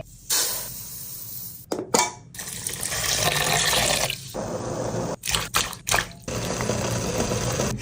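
Water running and splashing in several spells a second or two long, broken by short gaps.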